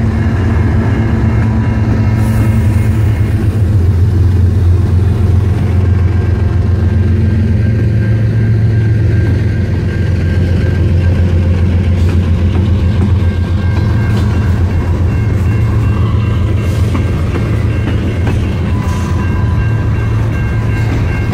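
Freight train passing close by: GE diesel-electric locomotives, ES44ACs and a C44-9WL, go past with a loud, steady low engine rumble. Near the end, covered grain hopper cars roll by on the rails.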